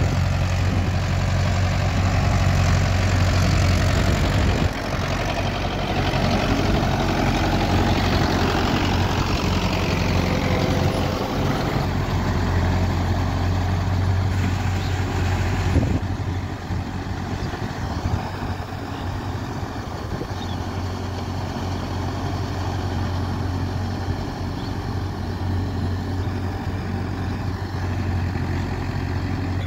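Mahindra Yuvo 585 4WD tractor's 50 hp direct-injection diesel engine running steadily under load as it pulls a rotary tiller through wet paddy mud. The sound gets a little quieter about halfway through.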